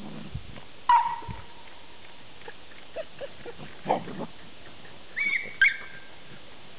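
Dandie Dinmont Terrier puppies at play, giving a few short high-pitched yips and squeals: one about a second in, a lower, rougher one around the middle, and two quick ones near the end.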